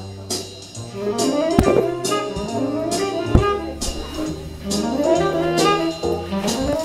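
Jazz with horns and a drum kit, played back over a valve-amplifier hi-fi system and loudspeakers in a demonstration room.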